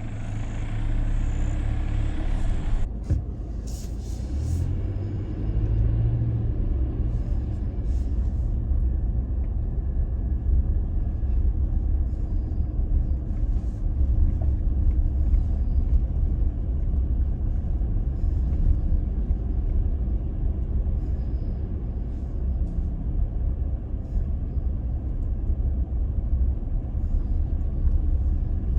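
Toyota Tacoma pickup driving slowly on a dirt trail: a steady low rumble of engine and tyres, with a few light knocks in the first several seconds.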